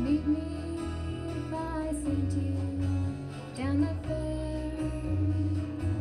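Live country band: a woman singing over strummed acoustic guitar, electric bass and drums.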